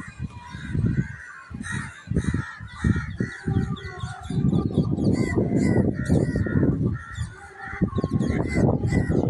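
Birds honking and calling, many short calls in quick succession.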